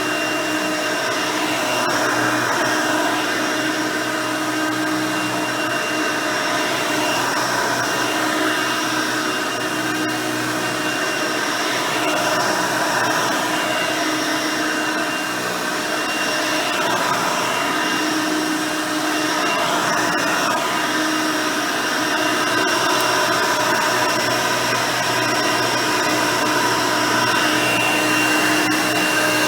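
Hoover Elite 350 upright vacuum cleaner running steadily, its original 5-amp motor and 9-blade fan giving a whine of several steady tones over the rush of air, with small rises and dips in level.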